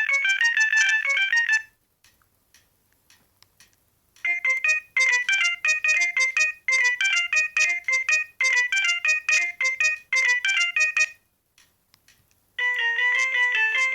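An Alcatel OT-E256 mobile phone's built-in ringtones playing from its small speaker as they are previewed one after another. One bright, fast electronic tune stops after about a second and a half. A second plays from about four seconds in, repeating a short phrase roughly every second. A third starts near the end, with faint clicks in the gaps between tunes.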